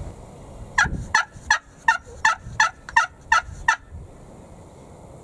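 Turkey yelping: a run of about nine loud, raspy yelps at roughly three a second, lasting about three seconds, then stopping.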